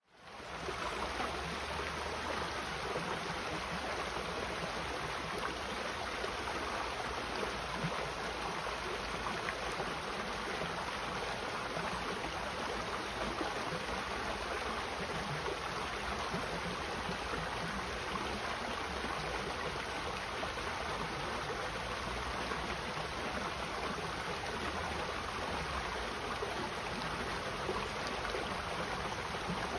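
Shallow creek water running and trickling over rocks: a steady, even rush that fades in over the first half-second.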